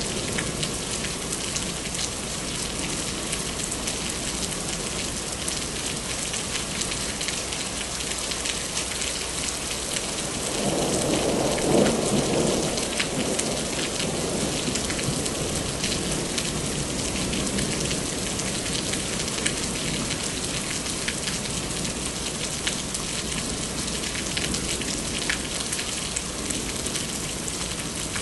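Steady rain falling, with many small drop taps. A rumble of thunder builds about ten seconds in, peaks briefly and fades over a few seconds.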